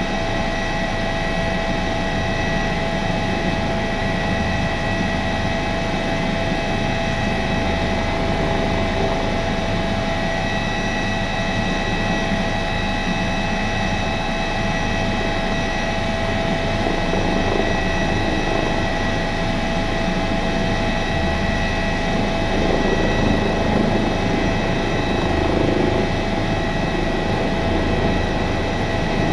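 Airbus H145 twin-turbine helicopter running at flight power, heard from inside the cockpit as it moves slowly just above the ground. A steady whine with several high tones sits over a dense rotor and engine rush and a low rumble, swelling slightly about three quarters of the way through.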